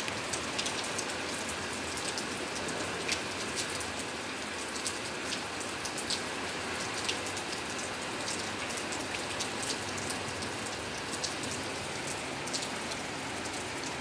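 Steady rain falling on pavement, with many sharp close drops ticking irregularly over the hiss.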